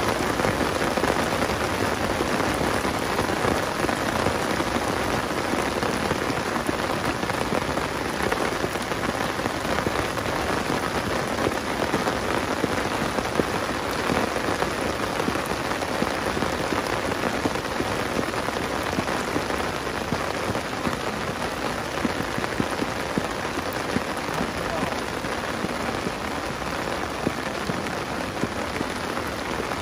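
Heavy rain falling steadily on a pond's surface and drumming on the fabric umbrella overhead, with a dense hiss of countless drops, easing a little in the last few seconds.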